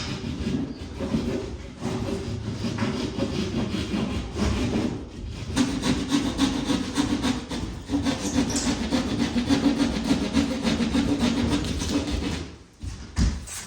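Sawing through a piece of drywall to cut a patch piece down to size: a continuous rasping that stops about a second before the end, followed by a couple of knocks.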